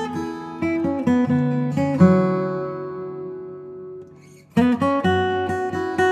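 Acoustic guitar music: a run of plucked notes, then a chord about two seconds in left to ring and fade away, before the picking starts up again about four and a half seconds in.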